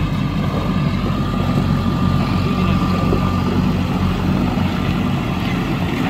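JCB 4DX backhoe loader's diesel engine running steadily as the machine works. A thin high whine sits over it for about the first half.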